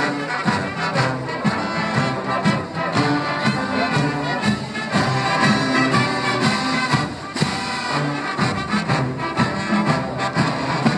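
Brass band playing a tune over a pulsing low bass line, with regular beats.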